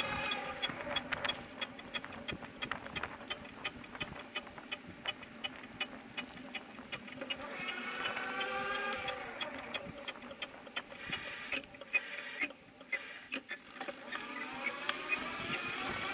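Noise from a bicycle's back wheel while riding: a rhythmic ticking, about three ticks a second, with a wavering squeal at the start, again about eight seconds in, and near the end.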